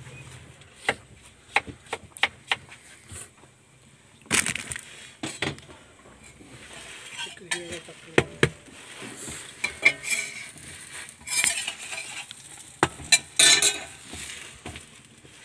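Steel spatula clinking and scraping on a flat metal street-food griddle while burger buns and patties sizzle on it. Sharp clinks come throughout, with louder scraping bursts about four seconds in and twice near the end.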